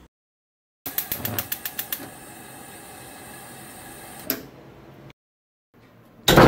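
Gas stove burner being lit: about eight quick igniter clicks in a row, then the steady hiss of the burning gas for about two seconds, broken by a single knock before it stops. Near the end a door swinging open makes a louder sound that swells up.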